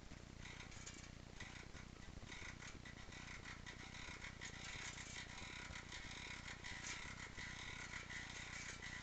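Rear hub of a Stels Navigator 300 bicycle knocking as the pedals are turned: a faint, rapid run of clicks that grows stronger about two seconds in. It is a new fault that comes only under pedalling and stops when the pedals are released, with its cause unknown.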